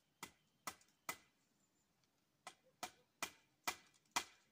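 A hammer striking nails into a wooden post: three blows, a pause of over a second, then a quicker run of five blows growing louder.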